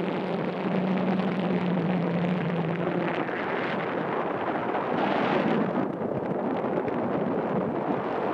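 Small motorboat's engine running at a steady pitch as it passes, fading out about three seconds in, with wind buffeting the microphone throughout and a stronger gust about five seconds in.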